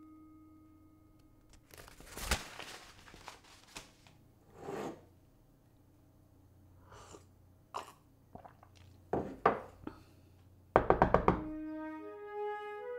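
Scattered faint knocks and clicks, then a quick run of about five loud knocks on a door near the end. A lingering music chord fades out at the start and soft music comes back in just after the knocking.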